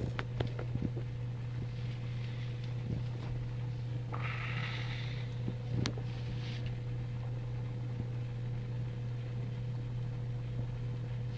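Steady low background hum, with a few faint clicks near the start, a short hiss about four seconds in and one sharp click about six seconds in.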